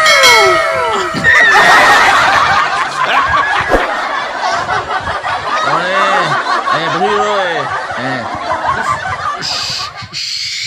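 Laughter from several voices at once, dense and continuous, after a short sliding-down tone at the start.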